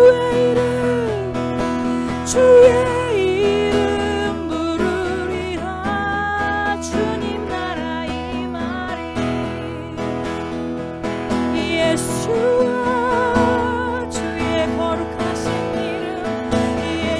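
A woman singing a Korean worship song, accompanying herself on strummed acoustic guitar.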